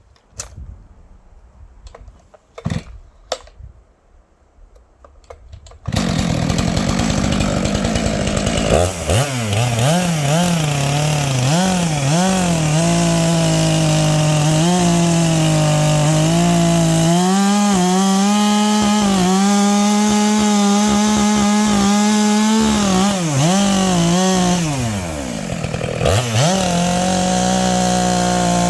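Stihl MS 462 two-stroke chainsaw with a 25-inch bar and ripping chain, cutting firewood. After a few soft knocks the saw comes in loud about six seconds in, its engine pitch sagging and recovering as the chain bites into the wood, easing off briefly near the end before cutting again.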